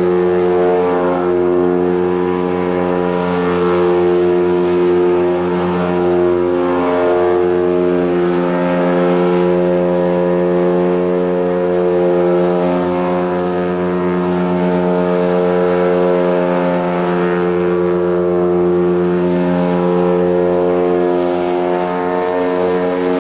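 Engine-driven ducted fans of a personal VTOL hover platform running steadily at hover power, one constant pitch with slight wavers.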